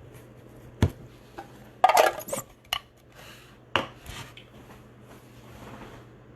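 A box of trading cards being opened and its hard contents handled: a few sharp clacks and clatters, loudest as a quick cluster about two seconds in, with light rustling between.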